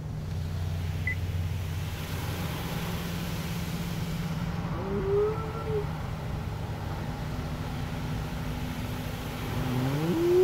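Automatic car wash equipment running with a steady low drone, heard from inside the car, rising in level just after the start. About halfway and again at the end, a pitched call glides upward and wavers; the second one is the loudest sound here.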